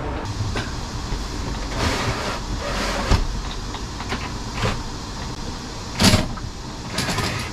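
Camper window being worked by hand: a few clicks and knocks from the latch and frame, the loudest just after six seconds in, with short rustles between them, over a steady low hum.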